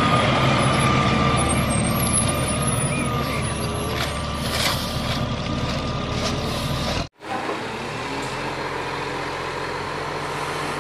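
Garbage truck diesel engines running: a rear-loading refuse truck with a steady high whine over the engine and a few sharp metallic clanks. After a sudden cut about seven seconds in, a front-loading garbage truck's engine runs steadily and more quietly.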